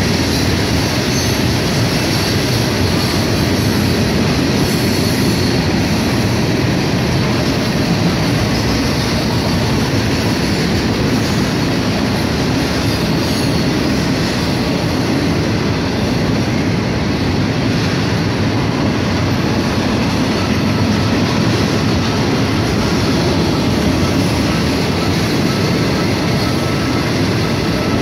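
Freight train cars rolling steadily past: continuous rumble and rattle of steel wheels on rail, with a faint thin wheel squeal joining in during the later part.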